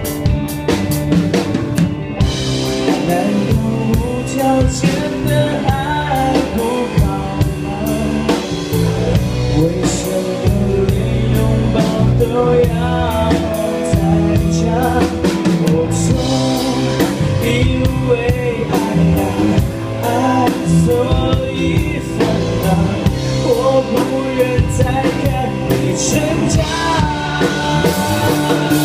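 Male vocalist singing a pop-rock song live, backed by a band on drum kit and electric guitar.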